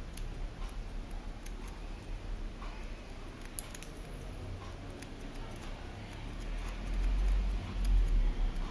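Barber's steel scissors snipping short hair at the nape, an irregular string of light, crisp metallic clicks. A louder low rumble comes in near the end.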